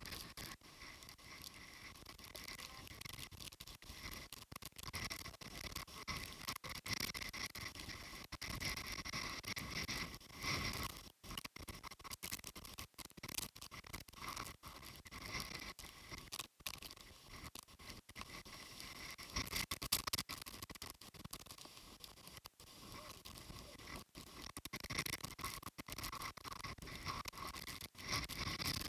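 Wind-driven typhoon rain pattering and scraping on the camera housing, with uneven gusty noise on the microphone.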